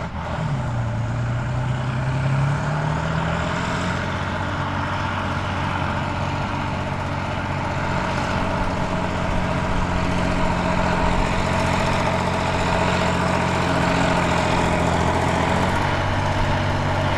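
Kirovets K-700 articulated tractor's turbodiesel engine working hard under load while dragging a tractor-pulling sled. Its note climbs over the first few seconds, then holds steady, dipping slightly near the end.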